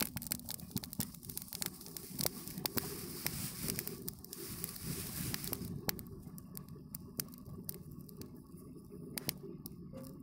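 Dry straw burning in a clay cookstove, crackling with many irregular sharp snaps and pops over a steady low background.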